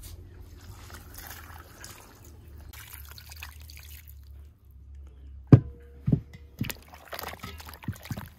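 Water poured from a clay jug over raw meat chunks in an enamel basin, a steady splashing stream for about four seconds. From about halfway through come a few sharp knocks and splashes as the meat is handled and rubbed in the water, the first knocks the loudest.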